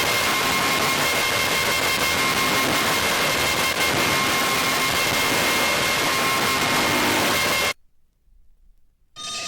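Harsh noise music: a dense wall of static-like noise with steady high whining tones. It cuts off abruptly about three-quarters of the way in, leaving a second and a half of near silence. A different, thinner noise texture then starts just before the end.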